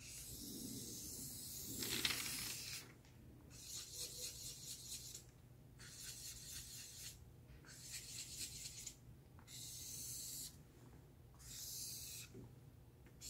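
Marker scratching across flip-chart paper as a face is drawn: one long stroke over the first few seconds, then about five shorter strokes of a second or so with brief pauses between.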